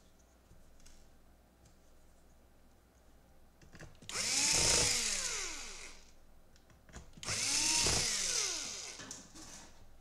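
Cordless drill/driver driving laptop screws: two short runs about four and seven seconds in. Each motor whine rises in pitch and then winds down.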